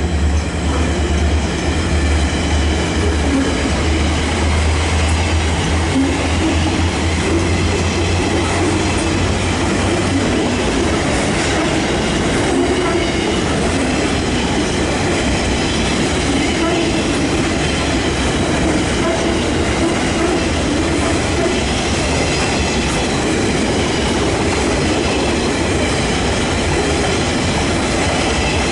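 Freight train's grain hopper wagons rolling past at speed, a steady loud rumble of wheels on rail. A low drone, the departing locomotive's diesel engine, fades out over the first ten seconds.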